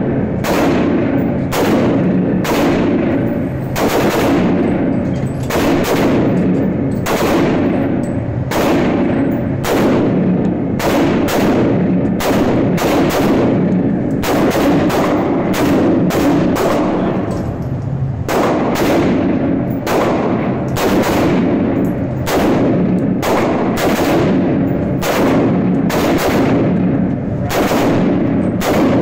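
Rifle shots fired in a long string at an indoor shooting range, roughly one or two a second at an uneven pace, each sharp crack trailing a short echo off the range walls.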